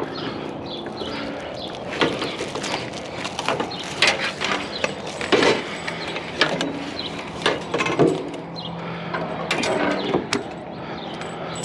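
Ratchet tie-down strap being worked to secure a load, a series of irregular sharp clacks. A steady low hum joins about halfway through.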